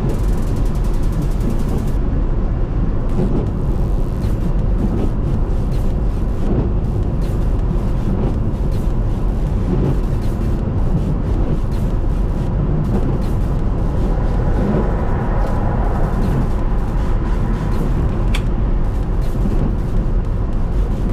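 Car driving on a wintry interstate, heard from inside the cabin: steady low road and engine rumble with many small sharp ticks of ice and snow hitting the roof.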